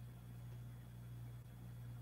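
Quiet room tone: a steady low electrical-sounding hum with a faint hiss, unchanging throughout.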